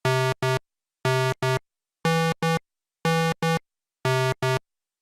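Synthesized electronic beeps in a steady pattern: a longer beep followed quickly by a short one, repeated about once a second.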